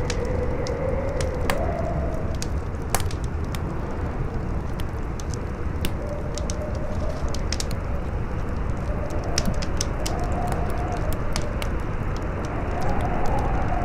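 Howling wind, its moaning pitch wavering up and down, over a crackling fire with frequent sharp pops.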